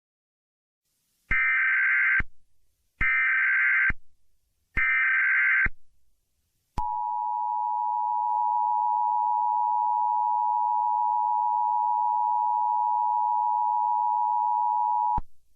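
Emergency Alert System alert opening: three bursts of about a second each of warbling SAME header data tones, then the steady two-tone EAS attention signal held for about eight seconds before it cuts off sharply. This sequence marks the start of an emergency broadcast alert.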